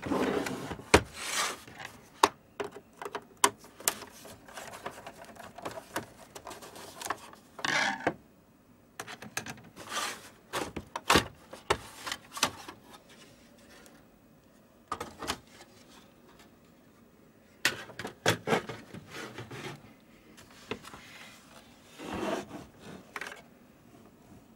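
Irregular clicks and knocks of parts and tools being handled during repair work, with a few short stretches of scraping or rubbing.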